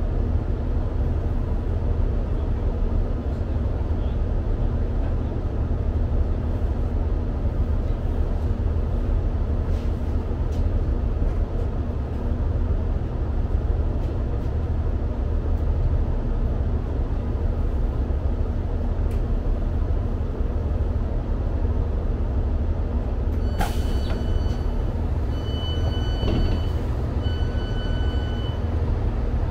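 Steady low rumble of a diesel train's underfloor engine, heard from inside the carriage as it draws up and stands at the platform. About 24 seconds in there is a click, then a series of high, evenly repeated beeps from the door warning.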